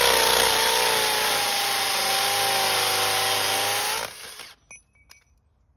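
Makita hammer drill boring into a concrete slab: a loud, steady grinding run with a motor whine that sinks slightly in pitch as it bites, stopping about four seconds in.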